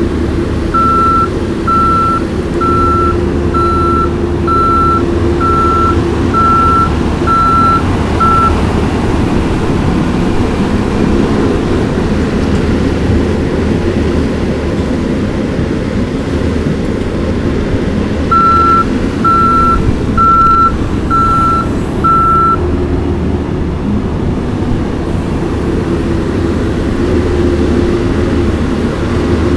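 Skid steer engine running steadily while its reversing alarm beeps about once a second: a run of nine beeps in the first eight seconds, then five more around twenty seconds in, as the machine backs up.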